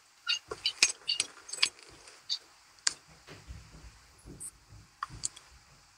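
Scattered sharp clicks and small rattles picked up by an open microphone on a voice call, thickest in the first three seconds, with a few dull low thumps after that.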